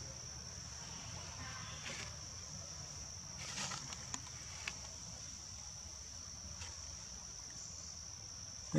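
Forest insects buzzing steadily at one high pitch, with a few faint clicks about halfway through.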